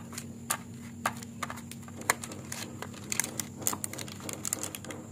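A spatula scraping and pressing over butter-greased baking paper lining a cake tin, making irregular crinkling and scraping ticks of the paper over a steady low hum.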